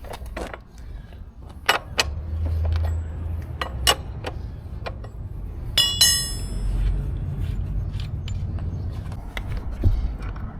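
A large wrench working the rear axle nut of a motorcycle: scattered sharp metal knocks and clanks, with one ringing metallic clank about six seconds in, over a low steady rumble.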